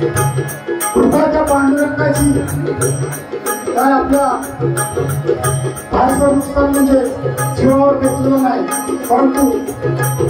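Marathi devotional bhajan: voices singing a held, bending melody over hand-drum strokes and a steady beat of small hand cymbals, about three strikes a second.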